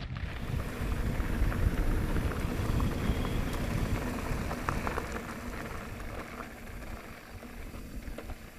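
Mountain bike rolling down a loose gravel track: tyres crunching over stones with a steady rumble and scattered small clicks and rattles. The sound gradually fades toward the end.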